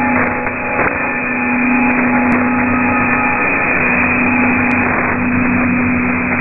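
Shortwave receiver tuned to 9390 kHz in sideband mode, giving a dense hiss of band noise and static cut off above the narrow filter, with a steady low tone running under it. This is the open channel just before the Radio Thailand World Service transmission is heard.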